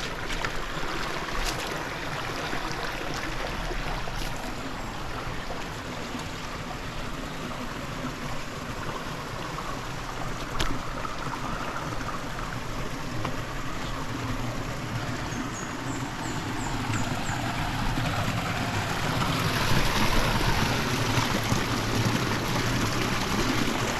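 Steady rush of flowing river water, growing a little louder over the last few seconds.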